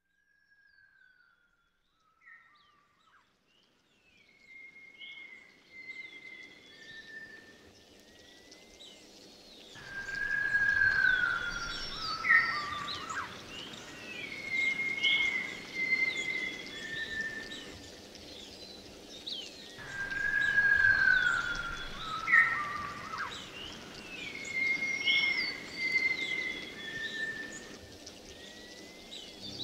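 Looped recording of wild birdsong: whistled, gliding calls and short chirps over a rushing outdoor background. It fades in over the first several seconds, and the same stretch of song repeats about every ten seconds.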